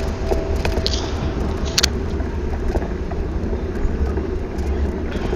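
Car traffic on a city street heard from a moving bicycle, with a steady low rumble of wind on the microphone and a sharp click a little under two seconds in.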